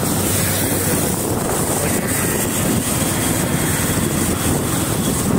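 Steady wind rush on the microphone and road noise from a moving motorcycle.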